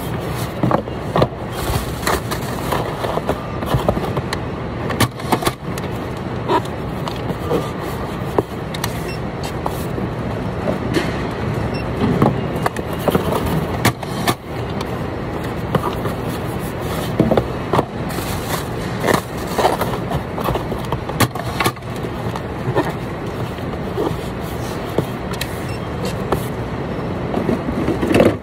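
Steady warehouse machinery hum with frequent knocks, taps and scrapes of cardboard boxes being handled and packed on a workstation table.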